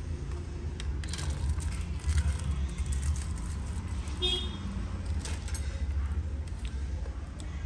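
Light clicks and taps as a plastic phone midframe and small parts are handled and set down on a silicone repair mat, over a steady low background rumble. A brief high tone sounds about four seconds in.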